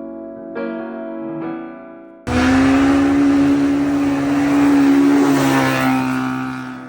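Piano music for about two seconds, then an off-road vehicle engine cuts in suddenly, running hard at high, fairly steady revs. A loud rush of noise sits under it, slightly rising and then easing off.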